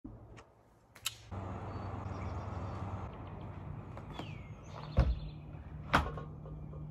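A house's front door shut with a sharp thud about five seconds in, then a second knock-like thud a second later, over a steady low outdoor hum. A single short falling bird chirp comes a little before the first thud.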